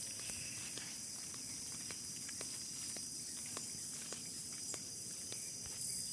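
Footsteps on a dirt road at a steady walking pace, about two steps a second, over a steady high-pitched drone of insects.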